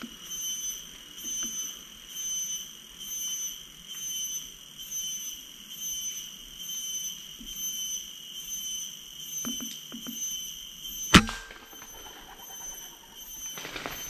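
A single sharp air rifle shot about eleven seconds in, with a brief ring after it. Under it, a high insect drone pulses steadily, about one and a half beats a second.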